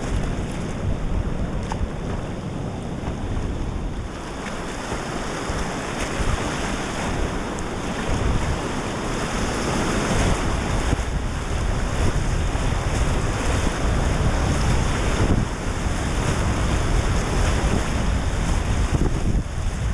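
Whitewater rapids rushing and splashing around a kayak's bow, with wind rumbling on the action-camera microphone. The rush grows louder about eight seconds in as the kayak drops into the white water.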